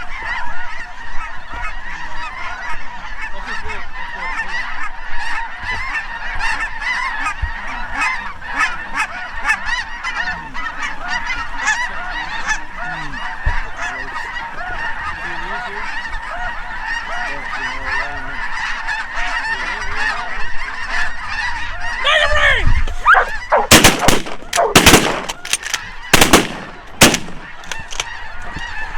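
A large mixed flock of geese (lesser Canada geese, specklebellies and snow geese) honking and calling in a dense, continuous chorus as they come in to decoys. About three-quarters of the way through, a rapid volley of shotgun blasts, about six shots over roughly four seconds, cuts through the calling.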